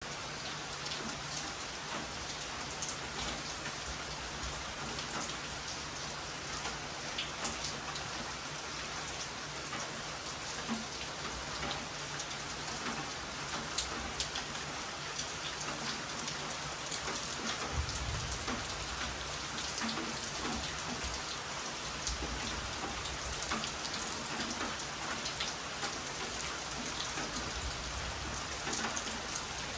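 Heavy rain falling steadily: a dense, even hiss of drops with many sharp individual drop hits. A low rumble comes and goes in the second half.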